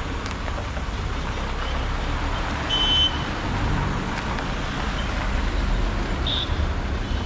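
Large caravan's diesel engine running as the vehicle creeps forward slowly in low gear, a steady low rumble. A brief high beep about three seconds in.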